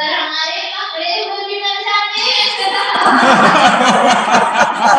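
A voice holds a long drawn-out note for about two seconds, then people break into loud, continuing laughter.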